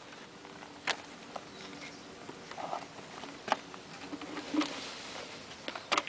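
Wooden hive frames knocking against each other and the wooden hive box as they are slotted in by hand, with a few sharp knocks. An insect buzzes faintly in between.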